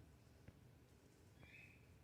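Near silence: faint room tone with a soft click about half a second in and a brief, faint high chirp a little later.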